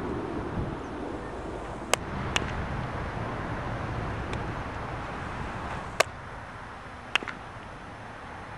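Five or six sharp cracks of a baseball being struck and caught at uneven intervals, the loudest about two and six seconds in, over a steady outdoor hiss.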